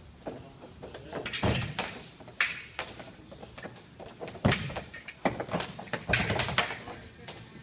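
Fencers' footwork during a fast exchange: shoes stamping and sliding on the hall floor in advances and lunges, giving several sudden loud thuds, the loudest about two and a half seconds in, with a brief high squeak near the end.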